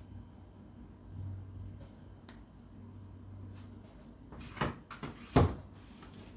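Kitchen handling sounds: two sharp knocks about a second apart near the end, over a low steady hum.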